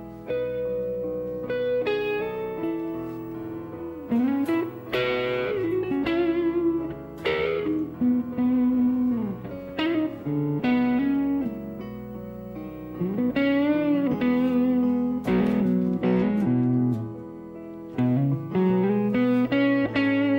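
Electric guitar played alone: a slow lead line of held notes with string bends and slides, broken by short pauses between phrases.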